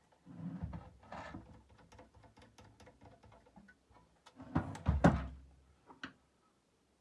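Hand-work on a disassembled projector's LCD optics block: a run of small light clicks, then a louder clatter of plastic parts about four and a half to five seconds in, and a last click about a second later.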